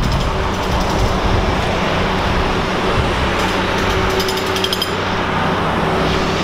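Steady engine and traffic noise beside a highway: a constant low engine hum under a loud rushing noise.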